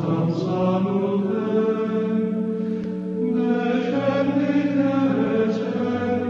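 Background music: a sung religious chant, voices moving over steady held low notes.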